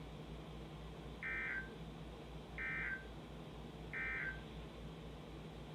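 Emergency Alert System end-of-message data signal: three short, identical bursts of warbling digital tones, about a second and a half apart, over a faint low hum. It marks the end of the severe thunderstorm warning broadcast.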